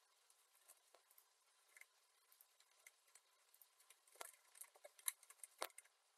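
Faint computer keyboard typing: scattered light key clicks, becoming quicker and louder for the last two seconds.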